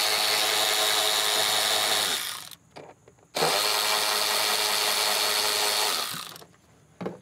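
Cordless ratchet running in two steady bursts of a few seconds each, with a short pause between, spinning out the two 8 mm fasteners that hold the engine cover down.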